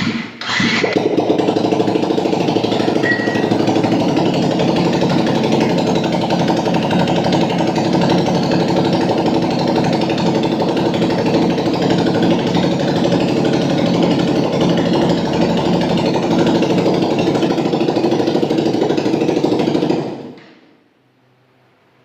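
Engine with a newly fitted cylinder block and piston running for the first time after the rebuild: it stumbles briefly about half a second in, then runs with an even, rapid beat for about twenty seconds, and is shut off near the end, dying away over about half a second.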